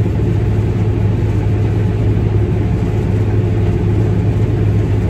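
Combine harvester running steadily under load while cutting soybeans, heard inside the cab: a constant low engine hum with the threshing and separating machinery going underneath.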